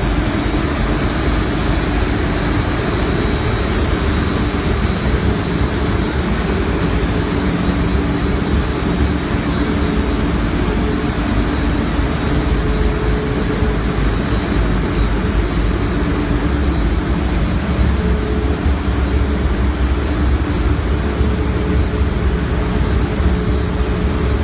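Industrial steam boiler running: a loud, steady roar with a deep rumble and a few steady hum tones, unchanging throughout.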